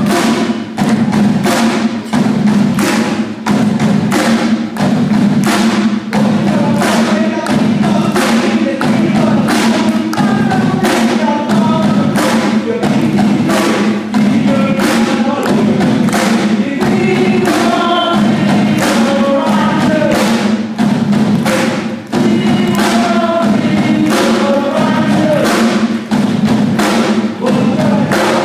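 Live rock band playing a medley through the stage PA: a drum kit keeping a steady beat under electric guitars and keyboards, with a lead vocal line.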